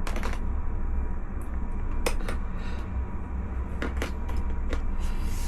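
Small packaged items being handled: several light clicks and taps of packaging set down and picked up, over a steady low hum.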